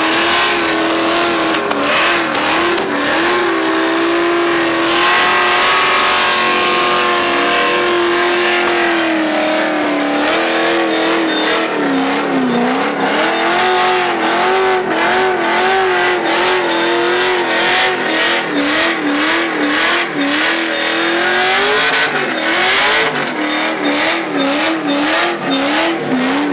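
LS V8 in a Nissan S13 240SX doing a long burnout, held at high revs with the pitch wavering up and down as the throttle is worked, over the hiss and squeal of the spinning rear tyres. Sharp cracks run through it, thickest near the end.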